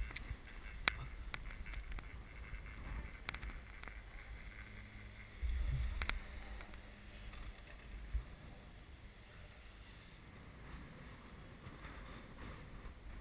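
Chairlift ride with wind on the microphone, a steady low rumble broken by a few sharp clicks. About five and a half seconds in, a louder low rumble lasting about half a second, ending in a click, as the chair passes under a lift tower's sheave wheels.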